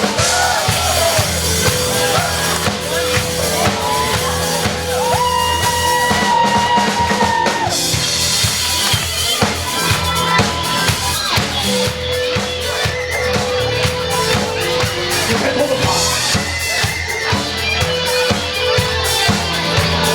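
A live band playing an instrumental passage of a rap-rock song: a drum kit keeps a steady beat under a few long held lead notes.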